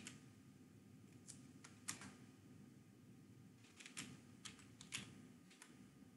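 Faint, scattered keystrokes on a computer keyboard as a password is typed, single taps with short pauses between them.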